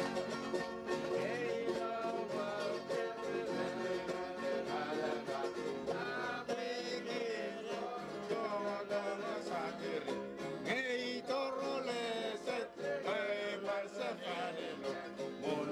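Music: singing over strummed plucked string instruments, with a steady strumming rhythm.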